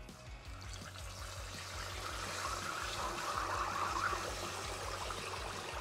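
Ribeye steak deep-frying in hot peanut oil, about 363°F, in a cast iron skillet: a bubbling sizzle that starts as the steak goes in and builds over the first couple of seconds, then holds steady.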